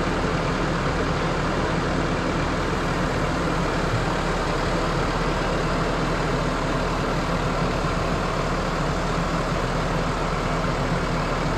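Tractor engine running steadily, a low, even drone with no change in speed.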